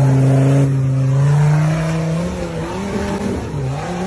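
Off-road 4x4's engine held at high revs under full throttle as it drives through a water hole and up a steep dirt climb; the pitch holds steady for about two seconds, then wavers up and down as the vehicle bounces up the slope.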